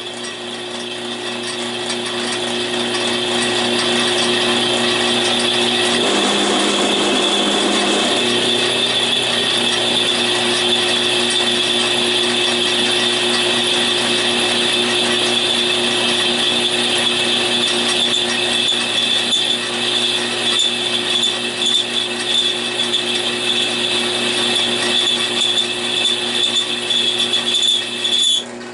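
Central Machinery 10-inch benchtop drill press running under load, a large twist bit cutting into steel tubing lubricated with thread-cutting oil, with a steady high-pitched whine over the machine's hum. The lower tones shift briefly about six seconds in, and the sound cuts off abruptly near the end.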